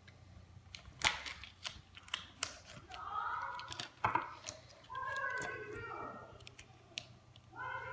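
Sharp clicks and snaps from hands working on small parts at the desk, loudest about a second in. Then a voice yelling in the background in several bursts, with a high-pitched call near the end.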